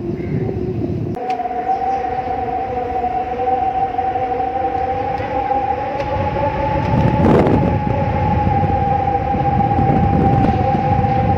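Eerie howling wind sound effect: two steady, sustained howling tones over a low rumble. About a second in, the howl jumps suddenly from a lower pitch to a higher one.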